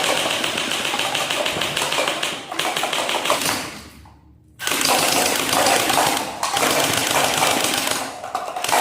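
Toy gun firing in long automatic bursts: a fast mechanical clicking rattle that stops for about half a second a little after four seconds in, then starts again.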